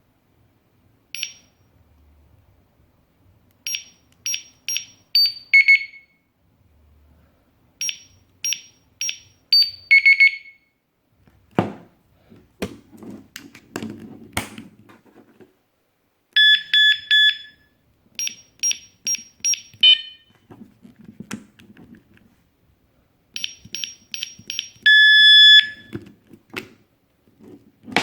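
Mito ML-321 digital alarm padlock beeping: runs of short high electronic beeps as its buttons are pressed, each run ending in a lower tone. Around the middle comes a sharp click and rattling as the lock is handled. Later come loud pulses of a lower alarm tone, three short ones and then one longer one near the end.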